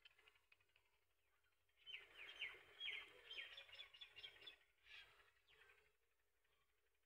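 Faint bird chirping: a quick run of short, high, downward chirps starting about two seconds in and fading out after about four seconds, with a soft hiss behind it.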